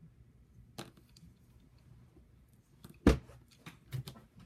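Faint room tone with a few scattered clicks and knocks, one sharp knock about three seconds in, followed by several smaller clicks.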